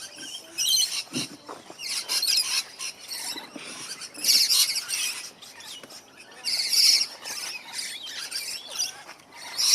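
Many aviary birds chirping and twittering together, with shrill bursts of chirps coming and going; the loudest are about four and a half and seven seconds in.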